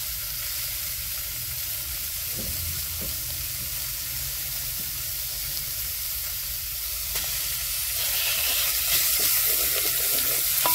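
Chopped red onions sizzling in hot oil in a stainless steel pot. Near the end ghee is stirred in with a wooden spoon, and the sizzling grows louder with the spoon scraping through.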